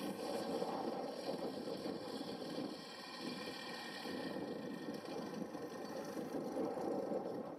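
Small 30cc two-stroke gasoline engine of a radio-controlled Slick 540 aerobatic plane idling steadily while the plane taxis on the runway after landing.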